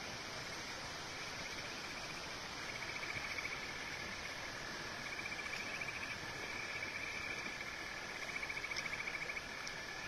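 Insects trilling in trains of rapid pulses that start a couple of seconds in and come and go, over a steady hiss of a small stream running over stones.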